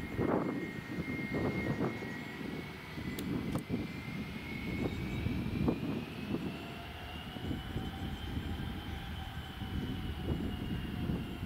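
An Airbus A320-family twin-engine jet running on the runway. Its engine whine rises in pitch over several seconds, then eases slightly, over a dense, uneven low rumble.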